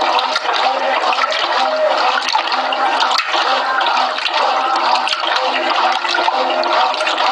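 Brastemp Clean 6 kg top-loading washing machine agitating a load that holds a double duvet: continuous sloshing and churning of water in the tub, with a low hum underneath.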